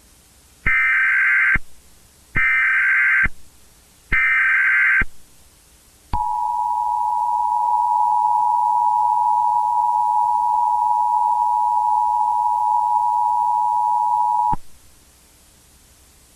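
Emergency Alert System tones: three short bursts of SAME header data, each just under a second long, then the two-tone attention signal held steady for about eight and a half seconds before it cuts off.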